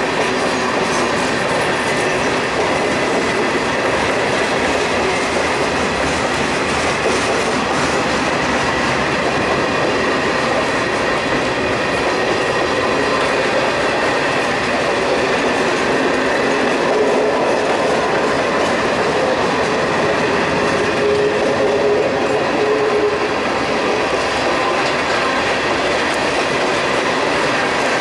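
Freight train of tank cars, covered hoppers and gondolas rolling steadily past: continuous noise of steel wheels on rail.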